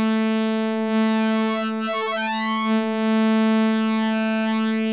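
Moog Animoog Z wavetable synthesizer holding one steady note while its timbre morphs as the orb scrolls through the wavetable positions, with a swirling, shifting change in the upper tones about two seconds in.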